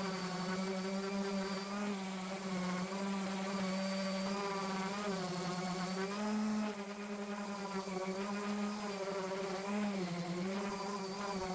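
Electric power sander running with a steady hum, its pitch dipping slightly now and then.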